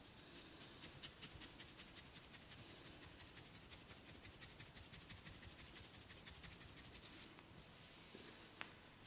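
A barber's hands working on a client's head and hair: a quick, even run of faint clicks, about six a second, that stops a little after seven seconds in, with one sharper click near the end.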